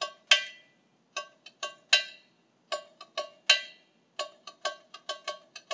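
Tamborim struck with a stick, playing a samba variation pattern of sharp, ringing hits. The hits come spaced out at first, then run more quickly in the last second and a half.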